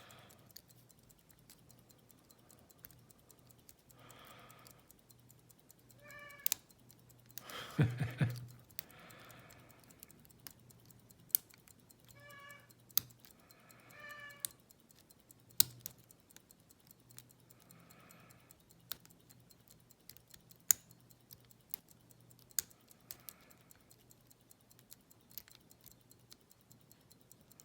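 A cat meowing repeatedly in the background, about eight short meows with the loudest about eight seconds in; the cat is begging to be fed. Sharp, scattered clicks of lock picks working a padlock's pins run under it.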